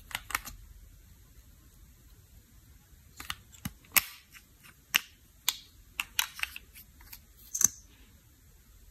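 Sharp, irregular plastic clicks and taps as a liquid-lipstick tube, its cap and its applicator wand are handled and opened. There are a few clicks right at the start, then a run of about a dozen from about three seconds in until nearly eight seconds.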